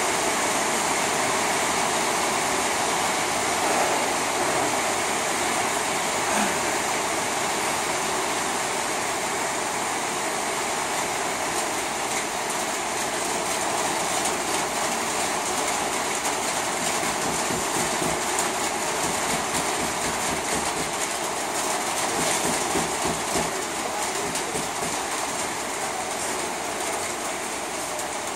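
Heavy rain falling on a zinc sheet roof, a steady, dense hiss.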